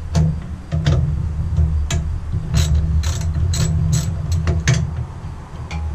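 Socket ratchet clicking in short, irregular runs as 10 mm bolts are worked loose, over a steady low rumble.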